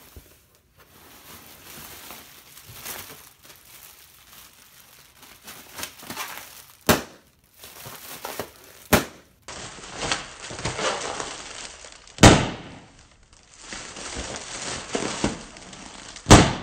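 Plastic air-pillow packing crinkling and rustling as it is pulled out of a cardboard box and handled, with four sharp snaps, the last two the loudest.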